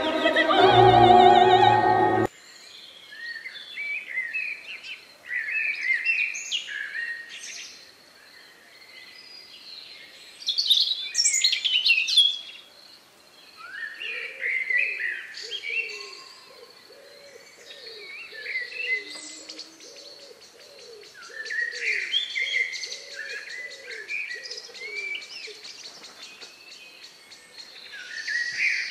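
Operatic singing that cuts off about two seconds in, followed by birdsong: assorted chirps and quick whistled phrases over a steady high trill. In the middle, a series of about a dozen low calls repeats at an even pace.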